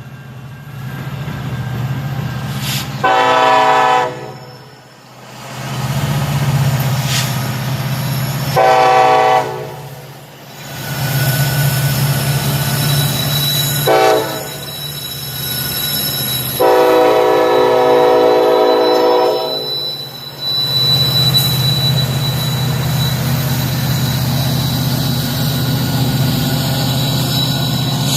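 Locomotive's Nathan K5 five-chime air horn sounding the grade-crossing signal: two long blasts, one short, then a final long one, over the steady rumble of the diesel engines. A thin high steady tone joins in about halfway through.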